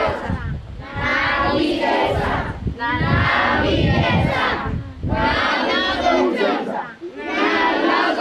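Large crowd of schoolchildren chanting a protest slogan in unison, the same short phrase shouted again and again with brief pauses between: a claim that the disputed school land belongs to them.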